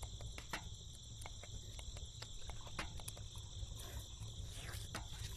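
Crickets chirping steadily, with scattered faint clicks or taps over them.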